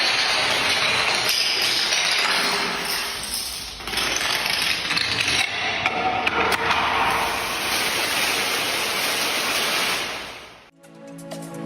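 Kinetic sand being cut and crumbled, a dense, steady crunching hiss that eases briefly about four seconds in. It cuts off sharply near the end, and music begins.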